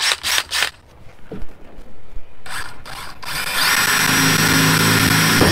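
DeWalt 20V MAX cordless drill boring a pilot hole with a small bit through the van's sheet-metal wall. A few clicks come first, then the drill starts a little past halfway and runs at steady speed.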